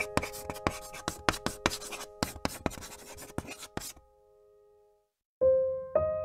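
Scratchy handwriting sound effect, many quick strokes, over sustained piano notes. The scratching stops about four seconds in, and after a brief near-silence, piano notes come back in near the end.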